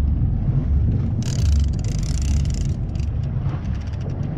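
Steady low rumble of a fishing boat's engine. About a second in, a burst of hiss joins it for about a second and a half.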